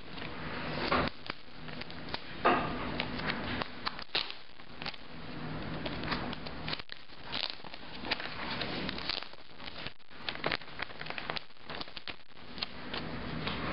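Close handling noise: irregular crackles, clicks and rustles as the laptop and its packaging are moved about, over a faint steady low hum.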